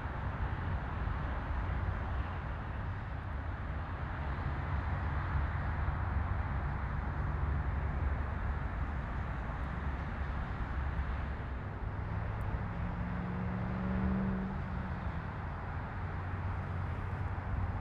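Bombardier Dash 8 Q400 turboprop at takeoff power as it rolls and lifts off: a steady deep propeller drone and rush of engine noise. Near the end, a low hum briefly swells and fades.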